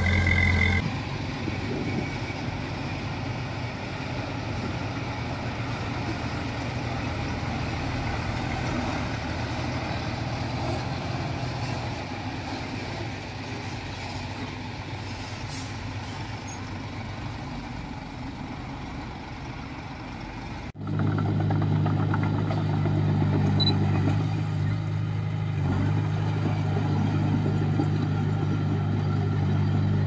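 Komatsu bulldozer's diesel engine running steadily under load. About twenty seconds in the sound cuts abruptly to a louder engine note.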